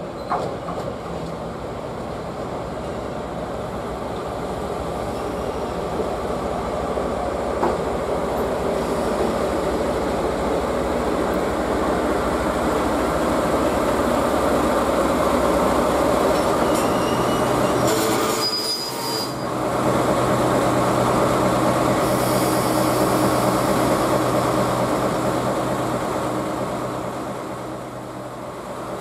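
Diesel locomotive hauling a track-inspection car, approaching slowly and growing louder, its engine running with a steady low hum. Wheels give a brief high squeal on the rails about 18 seconds in.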